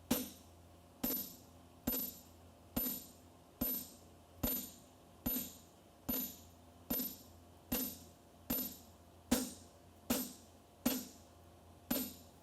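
Steady hammer blows on steel, a little more than one a second, each with a short metallic ring: a guide fuller being driven into a hot horseshoe bar on the anvil to start the nail crease.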